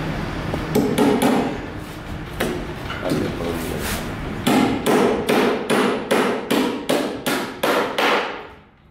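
Hammer blows on the timber frame of a wooden shuttering (formwork) panel: a few scattered strikes, then from about halfway a steady run of about a dozen blows, roughly three a second, stopping shortly before the end.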